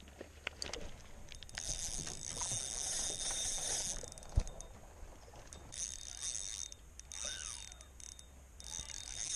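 Spinning reel being cranked to retrieve line in three bursts, each a high whirring from the reel's gears. A single sharp knock comes about halfway through and is the loudest sound.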